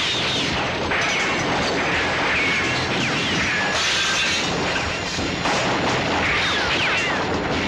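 Loud, continuous action-film sound effects of crashing and smashing, a dense din with no break.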